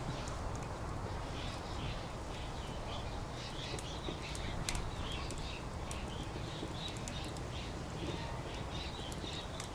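Firewood burning in a Coleman Fire Disc fire pan, crackling with scattered sharp pops, over a steady low background rumble. A quick run of high chirps, like small birds, goes on through most of it.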